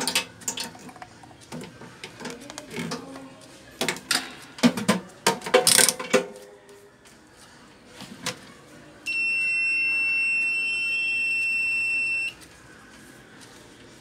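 Clicks and knocks from handling an analog multimeter and turning its selector knob, then a steady high-pitched electronic beep about nine seconds in that holds for about three seconds and cuts off.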